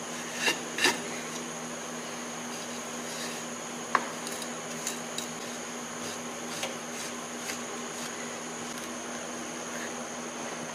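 Metal strike-off bar knocking on a moulding flask and scraping excess green sand off its top: two knocks in the first second, a sharp click about four seconds in, then lighter clicks, over a steady hum.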